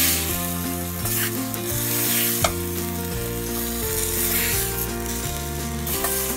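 Tofu and vegetables sizzling in a stainless steel pot as they are stirred and turned with a wooden spatula, with one sharp knock about two and a half seconds in. Background music plays underneath.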